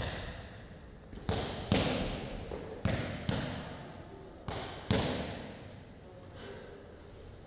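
A run of heavy thuds, mostly in pairs about half a second apart, each echoing in a large gym hall, stopping about five seconds in.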